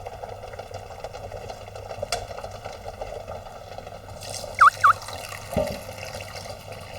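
Kitchen water sounds, running or bubbling steadily. There is a sharp click about two seconds in, two quick chirping tones a little past halfway, and a knock just after them.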